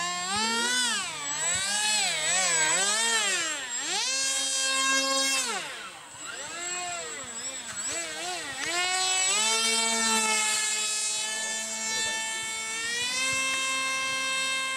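RC model jet's motor whining in flight, its pitch swinging up and down as it manoeuvres and passes, with a sharp drop about five seconds in, then holding steady near the end.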